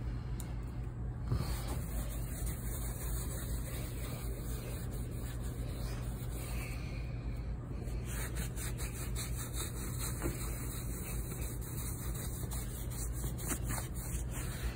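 Microfiber cloth rubbing and wiping across a metal appliance surface, over a steady low hum. From about eight seconds in, the wiping comes as a run of quick, even strokes.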